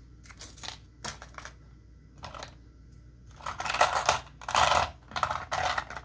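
Rummaging through small cases of craft supplies: several short clatters, then longer, louder stretches of rattling and shuffling from about halfway through.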